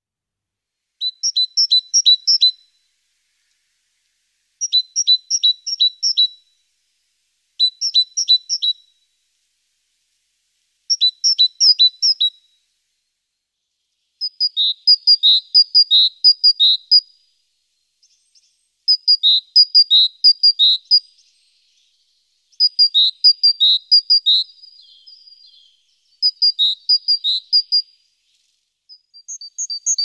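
Great tit singing its repeated two-note 'teacher-teacher' song: about nine short phrases of quickly alternating high and lower notes, each phrase a second or two long with pauses between.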